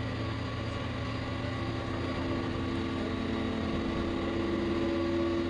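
A large vehicle's engine running steadily, its pitch rising a little in the second half.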